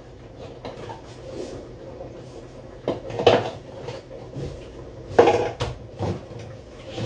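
Wooden kitchen cabinet door and items on the shelf being handled: a few knocks and clatters in two clusters, about three seconds in and again from about five seconds in.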